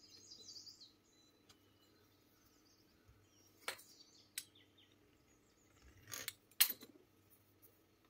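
A few sharp taps and knocks on a wooden cutting board as a fluted pastry wheel and hands work a rolled sheet of dough: two around four seconds in, two more around six seconds, the last the loudest. Brief chirping near the start.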